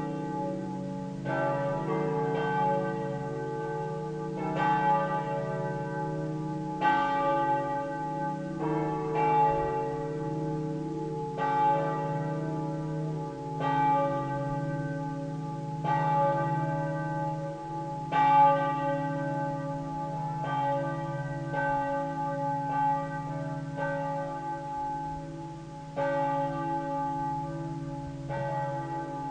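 Swinging church bells from a peal cast by the G. Pruneri foundry of Grosio, ringing in irregular overlapping strokes about once a second over a continuous ringing hum.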